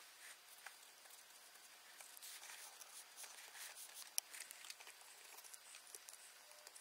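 Near silence: a faint hiss with scattered small clicks and rustles, and one sharper click about four seconds in.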